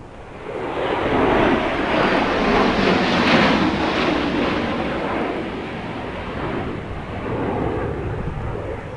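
Jet aircraft flying low overhead: a loud roar that swells about a second in, peaks around three seconds in and slowly fades, with a smaller second swell near the end.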